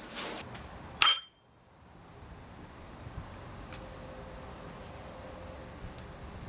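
A cricket chirping steadily, about four short high chirps a second, starting after a sharp click about a second in.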